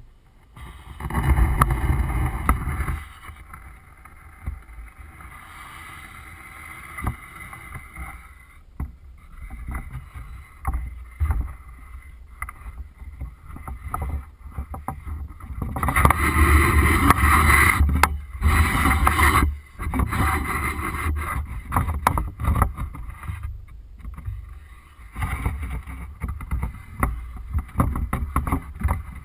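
Muffled rumble and rush of a camera drone's propeller wash buffeting the camera, surging louder about a second in, again for a few seconds past the middle, and near the end.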